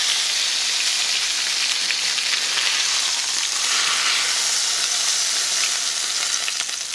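Flour-coated chicken breasts frying in hot olive oil and butter in a frying pan: a steady, loud sizzle as the seared pieces are lifted out with tongs.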